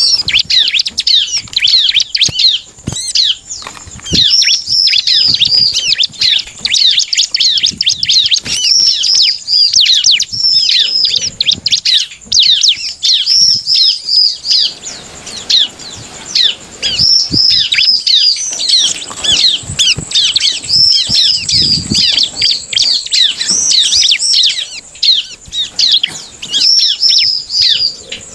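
Bar-winged prinia (ciblek) singing a rapid, chattering song of high notes, each a quick downward sweep, in long runs with short breaks. Occasional soft low thumps and flutters come from the bird hopping and flapping about its cage.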